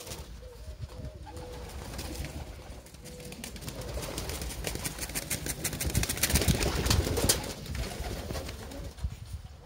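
Domestic pigeons cooing in the first few seconds, then a flurry of wing flaps and clatter as birds fly about, loudest six to seven seconds in.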